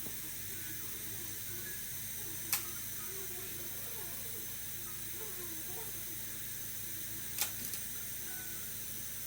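Steady hiss of dental operatory equipment, with two sharp clicks about five seconds apart.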